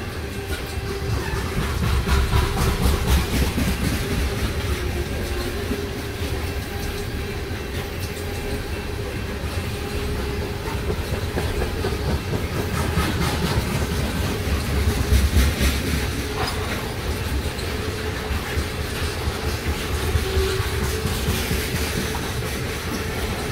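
Train cars rolling past close by at speed: a steady rumble of steel wheels on rail with rapid clickety-clack over the rail joints, swelling a little now and then.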